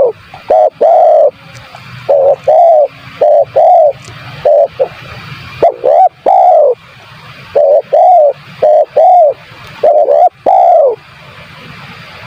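Spotted dove (tekukur) cooing loudly and repeatedly, in short phrases of two to four arched coos each, phrase after phrase.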